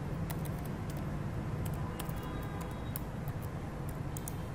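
A few sparse computer keyboard key clicks, over a steady low hum of room noise.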